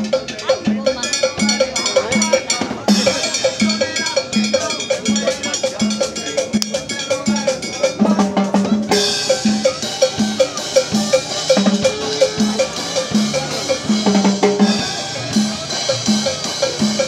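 A live street band plays a steady dance rhythm on a drum kit and congas. A sharp, bright stroke keeps the beat about four times a second, with a pitched melody line over the drums.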